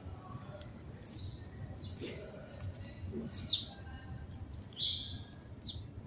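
House sparrows chirping: short, scattered high chirps about once a second from the flock, the loudest one about halfway through.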